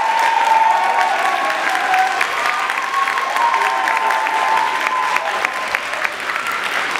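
Audience applauding, with shouts and cheers rising over the clapping in the first half.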